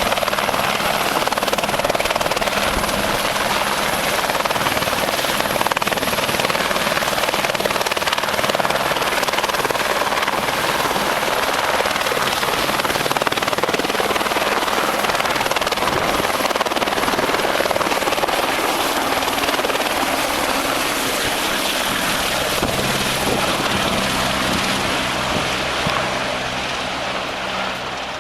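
Helicopter running steadily, its rotor and engine noise loud and continuous, growing a little fainter over the last couple of seconds.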